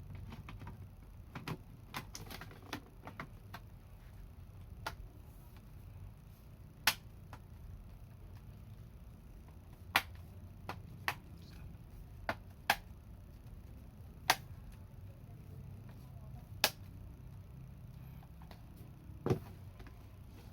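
Irregular sharp clicks and light taps, about fifteen over the stretch and denser in the first few seconds, from small laptop parts and tools being handled during work inside the laptop, over a low steady hum.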